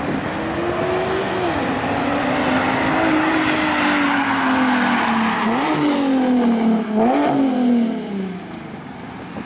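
Nissan 370Z's 3.7-litre V6 running through a full Tomei aftermarket exhaust as the car drives past under power. The engine note swells to its loudest in the middle, breaks sharply in pitch twice in the second half, then fades away.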